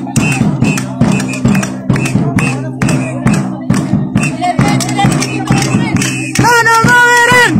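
Rhythmic percussion struck about three or four times a second over a steady low hum. Near the end a loud, long held note comes in.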